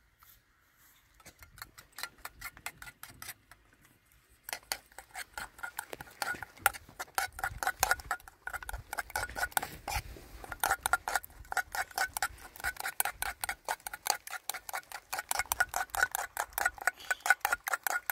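A metal utensil clinking rhythmically against a ringing vessel, several strikes a second, each with the same short ring. It is sparse and faint for the first few seconds, pauses briefly, then goes on steadily and louder from about four and a half seconds in.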